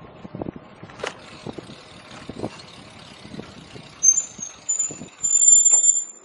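Bicycle knocking and rattling over the road surface, then the brakes squealing with a high, steady squeal from about four seconds in as the bike slows, loudest near the end.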